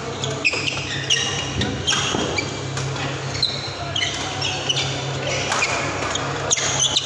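Badminton rally: rackets striking the shuttlecock with sharp cracks about once a second, and shoes squeaking briefly on the court mat as the players move, over a steady low hum in a large hall.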